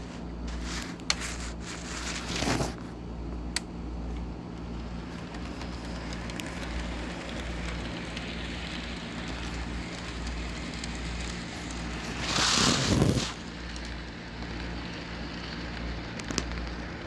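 Model train running on the layout's track: a steady crackly rumble of wheels on rail with a low motor hum and scattered clicks. A louder rushing sound swells for about a second about two-thirds of the way through.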